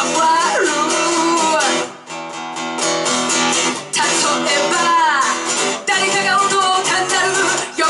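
Live rock band performing: a singer over guitar accompaniment. About two seconds in the voice drops out and a guitar chord rings on its own, more quietly, before the singing comes back.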